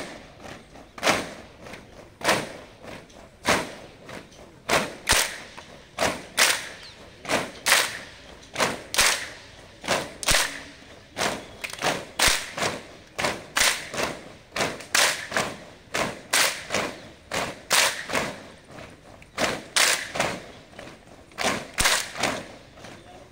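A large squad of recruits doing PT drill in unison, their movements landing together as sharp, regular thuds a little more than once a second.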